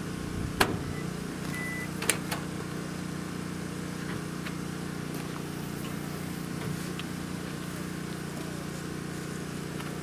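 Steady low engine hum throughout, with a sharp click about half a second in, a short high beep just before two seconds, then two clicks as the microwave oven's door is opened at the end of a drying cycle.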